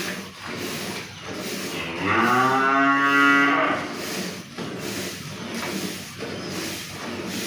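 A cow moos once, a long call about two seconds in that rises at first and then holds. Under it, milk squirts rhythmically into a part-full metal bucket as the cow is milked by hand.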